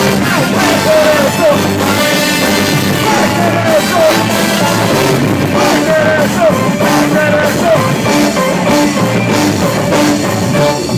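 Live band playing loud dance music with a steady beat, a melody line of short sliding notes repeating over it.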